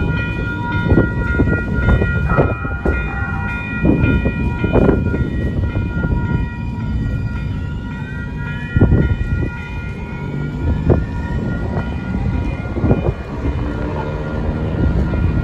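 San Diego trolley light-rail car passing, its electric drive giving a steady high whine of several tones over a low rumble, with a rising whine from about halfway through as it gathers speed.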